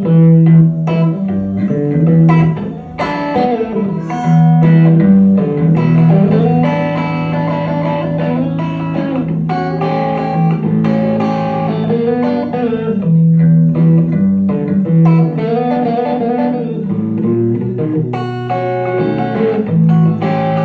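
Guitar playing the instrumental intro to a blues song, picked notes over a repeating low bass line.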